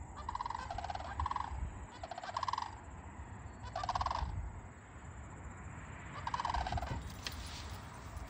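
Sandhill cranes calling across a field: a string of about six rolling, rattling calls, some sliding slightly down in pitch.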